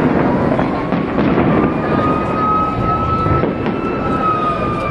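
Aerial fireworks bursting and crackling with a continuous rumble. Through it runs a long tone that slowly rises and falls, the wail of an emergency-vehicle siren in the street.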